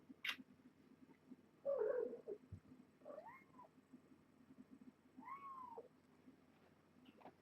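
Kittens mewing: two short mews that rise and fall in pitch, about three and five seconds in, with a couple of briefer sounds from handling the kittens earlier.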